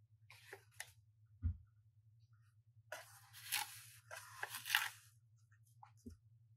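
Plastic pouch crinkling and rustling as it is handled and opened: a short spell near the start, then a longer, louder one about three seconds in. There is a soft thump about a second and a half in and another near the end.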